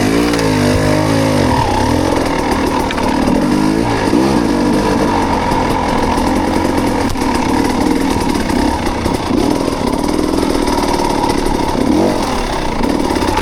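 Off-road motorcycle engine being ridden in a low gear, its note rising and falling again and again with the throttle.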